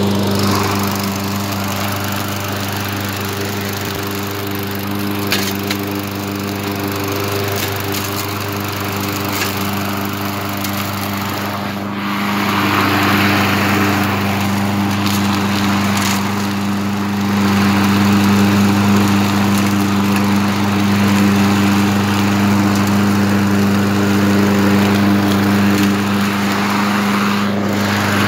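Craftsman walk-behind lawn mower's small single-cylinder engine running steadily while the mower is pushed along. It grows somewhat louder and rougher from about twelve seconds in.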